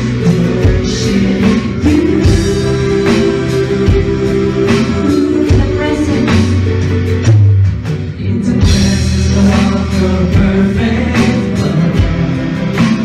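Live worship band playing and singing a slow worship song: two singers over acoustic guitars, ukulele, bass and drums.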